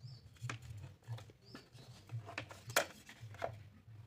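Light clicks and taps of stiff PVC plastic parts being handled and fitted together, a handful of short sharp ones with the loudest a little under three seconds in, over a steady low hum.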